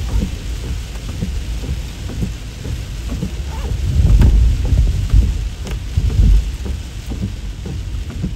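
Heavy rain pelting a vehicle in a downpour so hard the windshield wipers can't keep up, over a deep rumble that swells about four seconds in.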